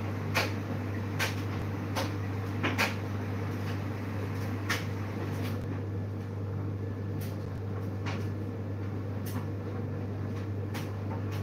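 Scattered light clicks and knocks, about a dozen at uneven intervals, of things being handled in a kitchen, over a steady low hum.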